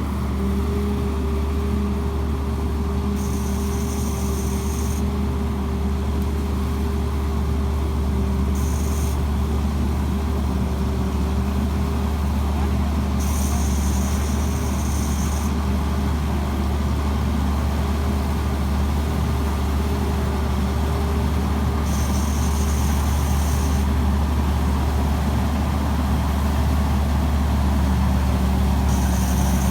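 Tamco Pro S9000 combine harvester's Hino J08C diesel engine running steadily with a deep drone and a steady hum over it. A higher hiss comes and goes several times, each lasting a second or two.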